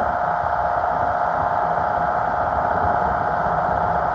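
Sailboat's engine running steadily under way: a constant hum with a steady drone and a noisy wash over it.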